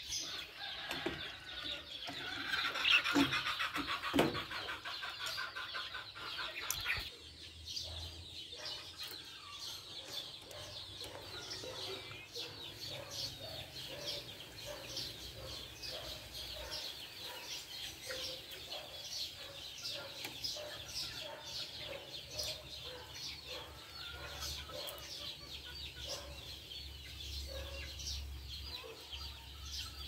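Budgerigars chirping and chattering in a stream of short, high chirps. For the first seven seconds or so, louder, fuller bird calls sound over them, then stop suddenly.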